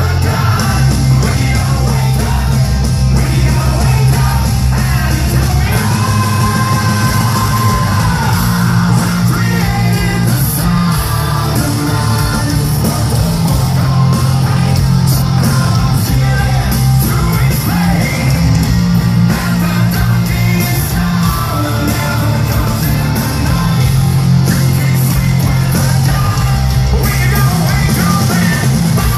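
Hard rock song with shouted and sung vocals over loud distorted guitars, bass and drums.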